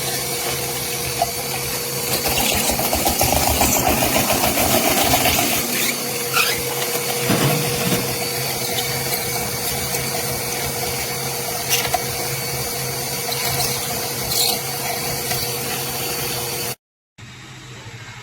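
Stand mixer motor running steadily with a constant hum, driving a slicer-shredder attachment, with some irregular rattling along the way. It cuts off abruptly shortly before the end.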